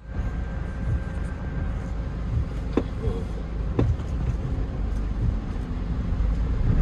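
Car interior noise while driving: a steady low rumble of engine and road, with two faint clicks about a second apart near the middle.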